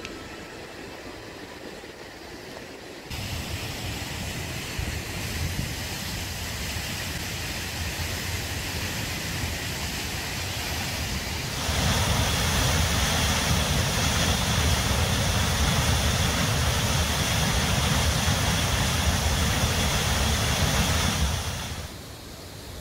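Steady rushing water noise that steps up about a few seconds in and again about halfway through, where it becomes the loud even rush of the Kirkjufellsfoss waterfall; it cuts off suddenly near the end.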